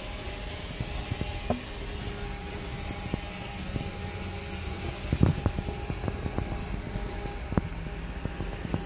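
Steady buzzing of a nearby hobby drone's spinning rotors, holding a fairly constant pitch. A few short knocks or clicks sound over it, the loudest cluster about five seconds in.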